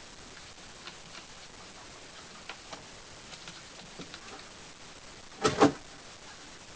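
Kittens playing on a pole: scattered light taps and ticks of their paws, then a louder double thump about two thirds of the way in.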